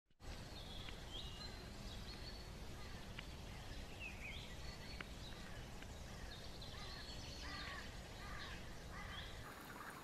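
Small birds calling and chirping, many short high calls, some gliding, over a steady low outdoor rumble, with a couple of faint clicks.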